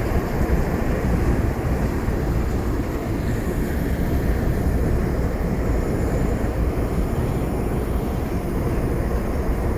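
Steady, even rumble of a moving passenger train, deepest in the bass.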